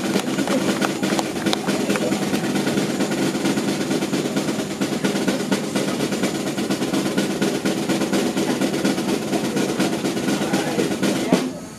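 Drum roll played by a live band: a fast, continuous roll at a steady level that stops abruptly near the end.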